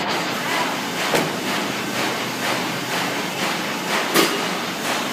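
Printing-factory machinery running with a steady mechanical clatter in a regular rhythm, with a sharper knock about a second in and a louder one about four seconds in.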